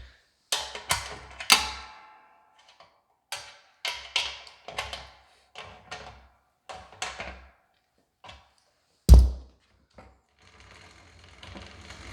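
Sharp metallic clanks and taps from the bike's back chain and axle hardware while the chain tension is set and checked against the chain guard, about a dozen in quick groups. Then one heavy low thump about nine seconds in, and a faint steady whir starting near the end.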